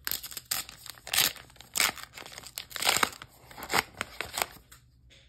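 Foil wrapper of a Flesh and Blood trading-card booster pack being torn open and crinkled by hand: a string of sharp crackling rustles that stops shortly before the end.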